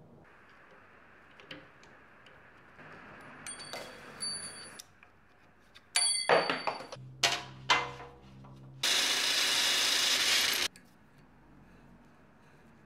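Assembly work on a CNC router frame: a few light metallic clinks, then a quick run of sharp plastic clicks and snaps as cable drag-chain links are pressed onto a bracket. This is followed by about two seconds of a loud, steady hiss that cuts off suddenly.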